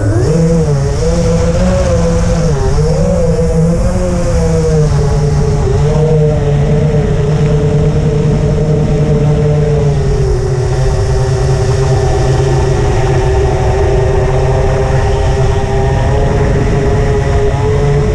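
FPV quadcopter's brushless motors and propellers whirring, the pitch wavering up and down with throttle changes for the first few seconds, then holding nearly steady for the rest.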